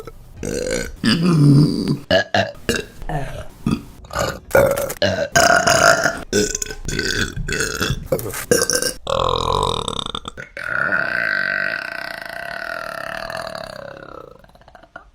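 Women burping: a rapid string of short burps for about nine seconds, then one long drawn-out burp of about five seconds that slowly fades away.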